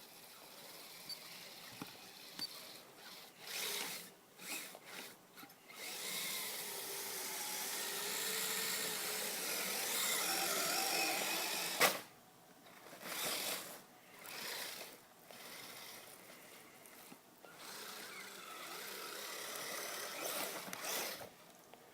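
Electric motor and gearing of a Kyosho Blizzard SR radio-controlled tracked snow vehicle whining in short throttle bursts, then in one longer run near the middle whose pitch rises and falls with the throttle, with more bursts after. A single sharp click comes about halfway through.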